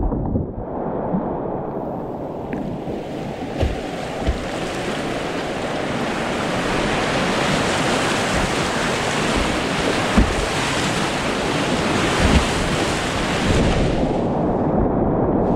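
Whitewater rapids rushing close by, the rush growing louder and hissier over the first seconds and easing near the end, with a few short knocks in it.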